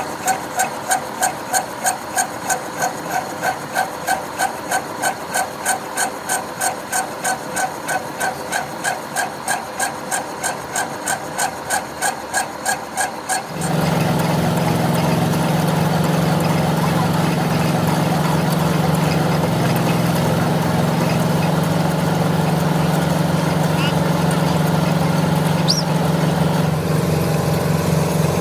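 Machine-shop metal cutting: rhythmic strokes at about three a second, each with a ringing tone. About halfway through, the sound cuts abruptly to a steady, louder machine hum.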